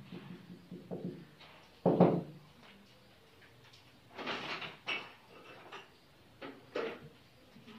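A few scattered knocks and a short scraping rustle, the loudest a single thump about two seconds in.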